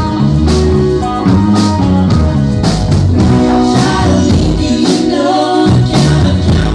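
Indie pop band playing a song live, with singing over a steady drum beat, bass and guitar.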